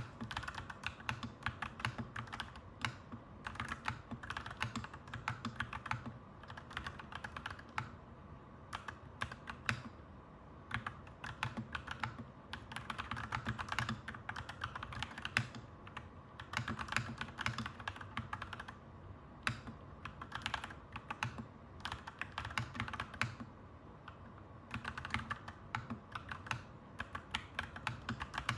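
Clacky mechanical keyboard typing, in fast runs of keystrokes with short pauses between them, over a steady low background hum.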